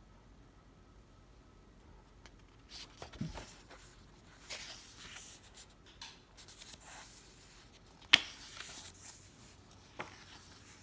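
Pages of a hardcover book being turned, with paper rustling and a hand brushing across the pages in scattered short strokes. A sharp click about eight seconds in is the loudest sound.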